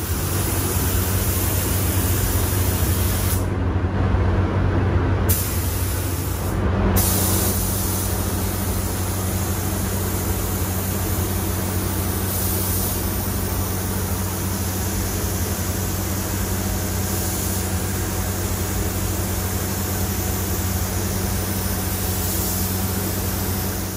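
Gravity-feed automotive paint spray gun hissing steadily as it lays down a coat of paint, over a steady low hum. The hiss cuts out for a couple of seconds about three and a half seconds in, and again briefly soon after, as the trigger is let off.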